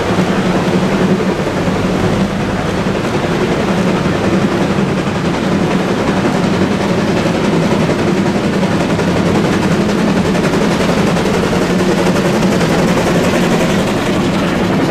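Taiwan Railway CK124, a 2-6-2T steam tank locomotive, working a passenger train: its exhaust chuffs continuously over a steady low drone.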